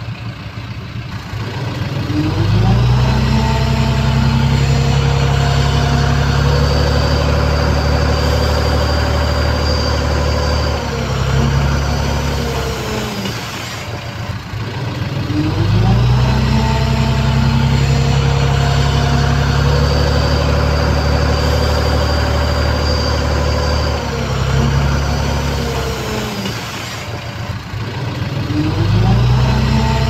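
Bulldozer's diesel engine revving up and holding at high speed under load for about eight seconds, easing back toward idle, then revving up again; the cycle comes twice, with a third rise near the end. A thin high whine rises and falls with the engine speed.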